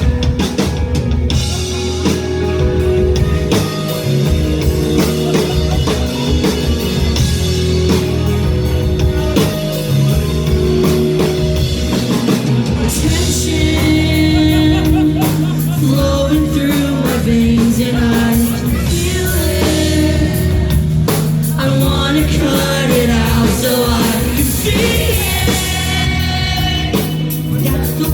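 Live rock band playing loud, with electric guitars, bass and a drum kit, and a voice singing over it, as heard from the crowd.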